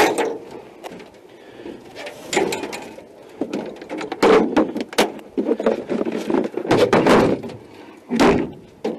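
Irregular knocks, clicks and scuffs of fishing gear being handled on the deck of an aluminum boat, with several louder rubbing scuffs in the middle and near the end.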